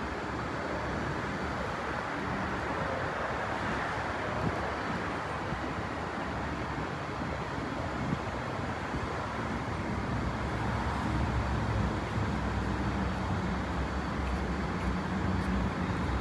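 Steady running noise inside a Honolulu Skyline rapid-transit car, an even rumble and hiss, with a low hum that grows stronger about ten seconds in.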